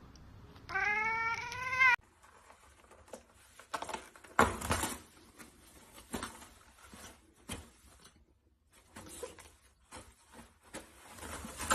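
A cat meows once, a drawn-out call rising a little in pitch and cutting off suddenly. Then a run of scattered knocks and rustles, the loudest a thump about four and a half seconds in.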